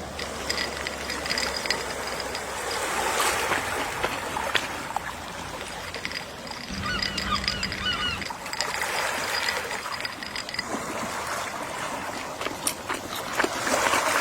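Gentle sea waves washing in a steady hiss, with a short run of seagull calls about seven seconds in.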